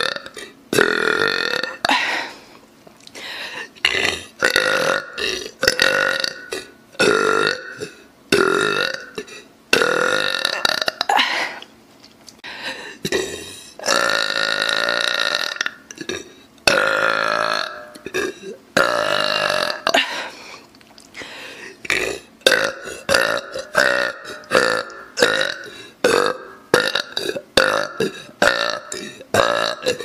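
A woman burping over and over, one burp after another: mostly short burps about a second apart, with a few long drawn-out ones, coming quicker and shorter toward the end.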